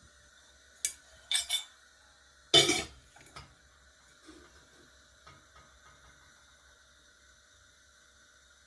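Metal pots and utensils clinking and clanking: a few sharp knocks in the first two seconds, a louder clatter at about two and a half seconds, then only faint ticks.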